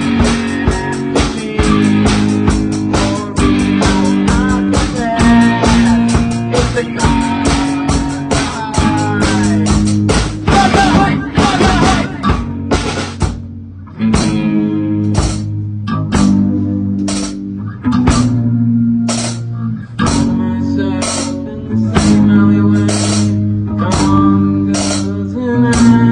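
Instrumental passage of a small rock band playing live: guitar, bass guitar and drum kit. About halfway through, the dense guitar lines drop back and the playing turns to short, evenly spaced accented hits.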